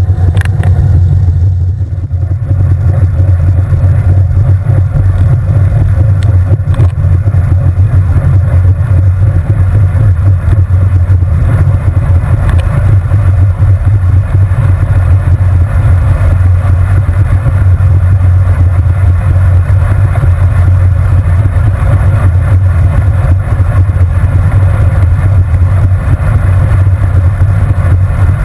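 Wind buffeting the microphone of a handlebar-mounted action camera on a road bike moving at speed: a loud, steady low rumble that dips briefly about two seconds in.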